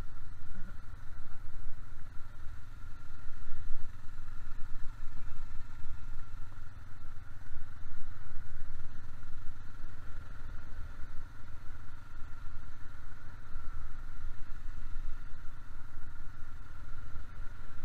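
Honda ATV engine running steadily while towing, with a heavy low rumble on the helmet microphone from the ride over gravel.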